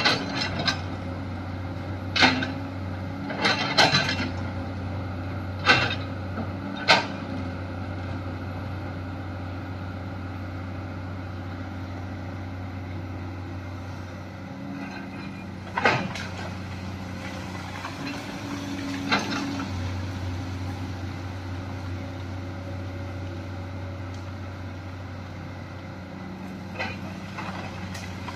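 Komatsu hydraulic excavator's diesel engine running steadily as it digs a dirt bank, with sharp clanks from the digging: a cluster in the first seven seconds and two more later. The engine eases off for a few seconds midway, then picks up again.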